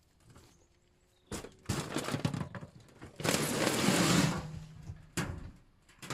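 Several sharp knocks and clattering hits, then a loud crash lasting about a second, and one more knock near the end.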